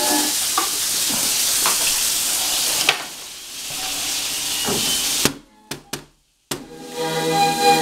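A steady hiss with a few sharp clicks, which then thins out into a break that drops to near silence for about a second. Music comes back in near the end.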